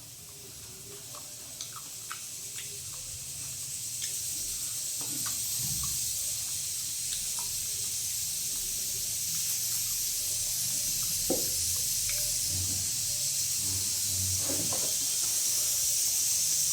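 Food frying in hot oil: a steady sizzling hiss with scattered small pops and crackles, growing gradually louder.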